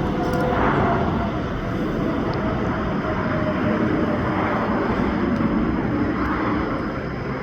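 Jet airliner engines running, a steady loud rumble with a faint held whine over it.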